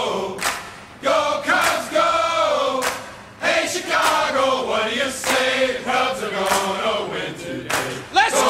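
Song with a group of voices singing together over regular drum hits.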